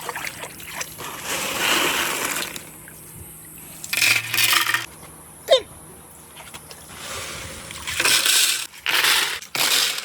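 Glass marbles clattering and rolling down a wooden rain-gutter slide with water, splashing and clinking in several surges. A short squeak-like glide comes about halfway.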